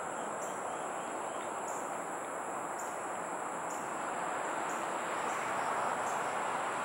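Steady insect chorus: a high, shrill buzz that swells and dips about once a second, over a constant broad rush of outdoor background noise.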